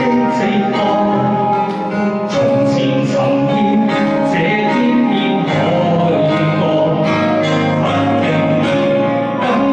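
Pop ballad music with plucked guitar and a voice singing, playing loud and steady with a regular beat.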